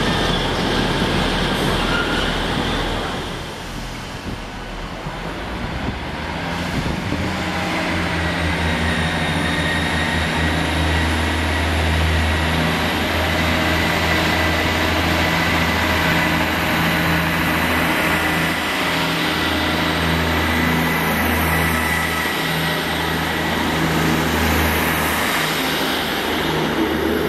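Empty container flat wagons of a freight train rumbling along the rails, then a First Great Western Class 158 diesel multiple unit running in along the platform, its underfloor diesel engines droning steadily as it draws past.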